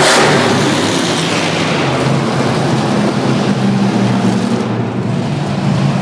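Bigfoot monster truck's engine running loud as the truck passes close by, the rush of noise easing over the first second or two and settling into a steady, lower engine drone as it drives away across the arena floor.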